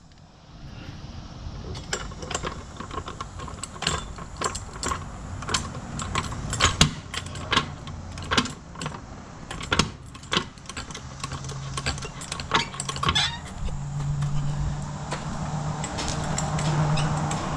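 Floor jack being worked to raise a car: a run of irregular metallic clicks and clanks. A low steady hum comes in about eleven seconds in and grows louder toward the end.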